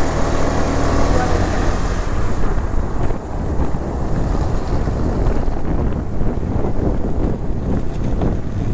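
Motorcycle engine running at low road speed under heavy wind rush on the microphone. A steady engine hum is clear for about the first second and a half, after which the wind noise covers most of it.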